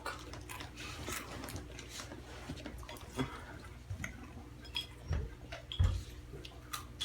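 Scattered light clinks and knocks of a spoon and dishes being handled, with two dull thumps about five and six seconds in, the second the loudest.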